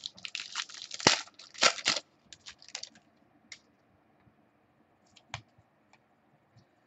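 Small handling sounds: a quick flurry of sharp clicks and rustling in the first two seconds, then a few scattered single clicks, the last about five seconds in.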